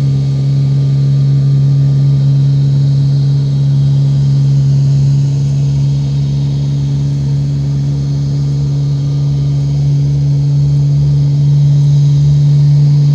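Aircraft engine running steadily at one constant pitch, loud and close.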